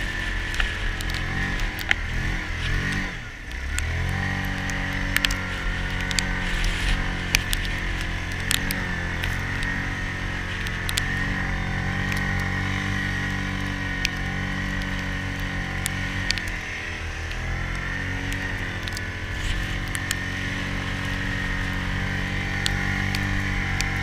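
Yamaha Grizzly ATV on snow tracks, its single-cylinder four-stroke engine running steadily under load through deep snow. The revs drop and climb again about three seconds in, and dip briefly once more later on. Scattered sharp clicks run through it.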